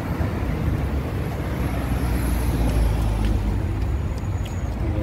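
Road traffic noise: vehicles passing on a busy highway, a steady low rumble that swells as a vehicle goes by about halfway through.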